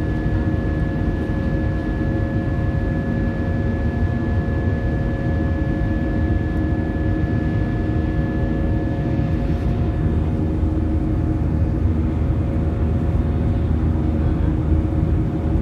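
Jet airliner's engines and airflow heard inside the cabin during takeoff: a steady, deep rumble with a few steady engine tones above it, and a thin high tone that fades out about ten seconds in.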